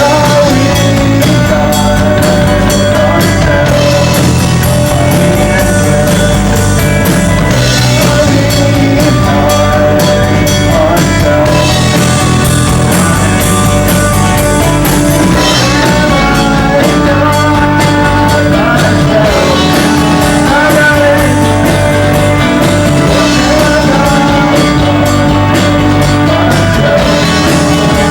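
Live rock band playing a song: drum kit, electric guitars and bass, with a singing voice.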